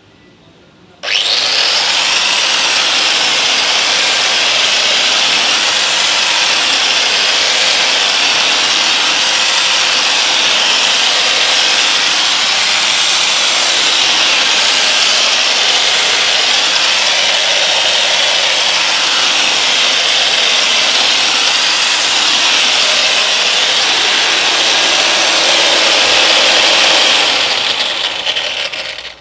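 Angle grinder converted into an air blower with a PVC fan housing, switched on about a second in and running at full speed, a loud steady high whine with a rush of blown air. It fades off near the end.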